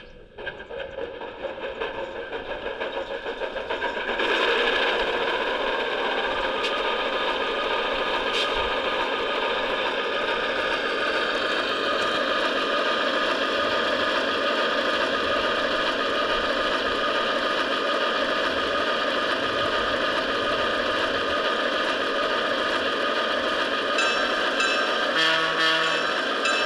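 Diesel engine sound from a G scale model locomotive's Soundtraxx Blunami sound decoder, played through the model's speaker. It swells over the first few seconds, then runs steadily.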